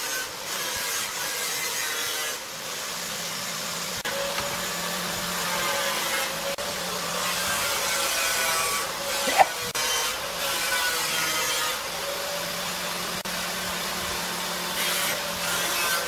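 Steady workshop machine noise, like a woodworking power tool running, with a few faint held tones through it and one sharp tap about nine seconds in.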